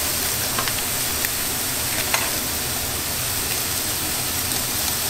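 Steady hiss and sizzle of a wok of seafood and stock on a high restaurant gas burner, with a few light clicks in the first couple of seconds.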